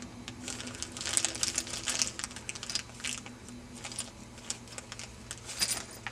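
Irregular light clicks and rustling as small model parts and their plastic packaging are handled.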